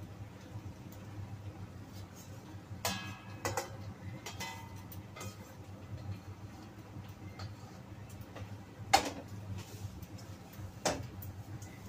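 Metal spatula knocking and scraping against a wok while stir-frying noodles, with scattered sharp metal clinks, the loudest about nine seconds in. A steady low hum runs underneath.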